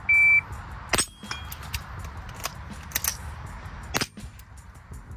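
A shot timer's start beep, then a Calibre Innovations M22 .22LR AR-15-style semi-automatic rifle firing several rimfire shots at an uneven pace, with wind noise on the microphone.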